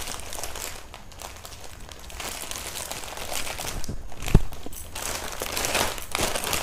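Clear plastic clothing packaging crinkling and rustling as it is handled, with one dull thump about four seconds in.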